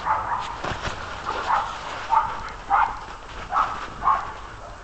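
Big bullmastiff–Great Dane cross dog giving about six short barks spread over a few seconds, excited play barking in the snow.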